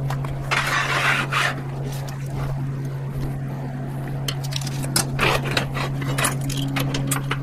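Workshop handling noises: a short scraping rush, then scattered clicks and light knocks of tools and metal over a steady low hum.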